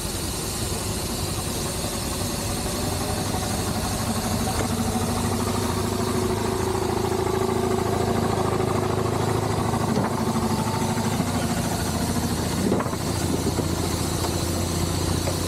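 Steam traction engine running steadily as it moves off with the brake released, its mechanical note rising and strengthening through the middle.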